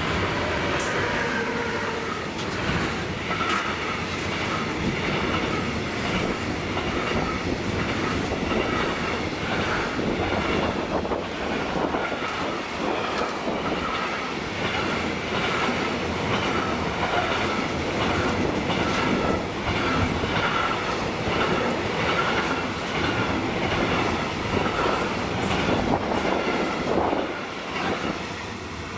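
Electric locomotive and a long intermodal freight train of truck semitrailers on flat wagons passing close by. The wheels on the rails make a steady, regular clickety-clack, which dies away near the end as the last wagon goes by.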